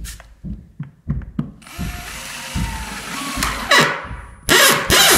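A power drill/driver runs for about two seconds, driving a partly threaded wood screw through an old wooden floorboard to pull it down onto the joist. A few knocks come first as the screw is set. Near the end, loud music starts.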